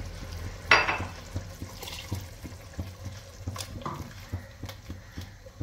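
A red silicone spatula stirring a thin coconut curry in an enamelled pot, the liquid sloshing with light clicks and knocks against the pot. One short, loud noise comes about a second in.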